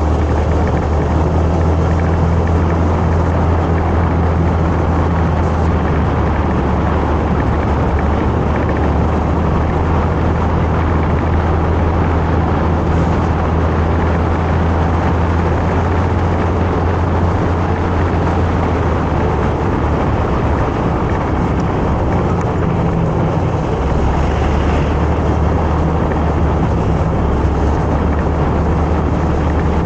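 Motorcycle engine running steadily at cruising speed, with wind and road noise on an on-board microphone. The engine note shifts slightly a couple of times about two-thirds of the way through.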